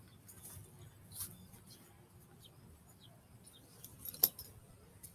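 Faint rustling and light scattered clicks, with one sharp click about four seconds in.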